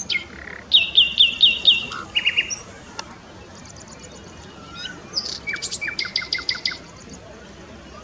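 Small birds calling: a run of five quick repeated whistled notes about a second in, a short burst of lower notes just after, and a second run of rapid sharp notes in the second half.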